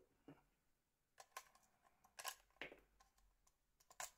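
A scattering of faint, sharp clicks and taps, about half a dozen, from small plastic and metal parts of a Nokia 3330 being handled as the phone is taken apart.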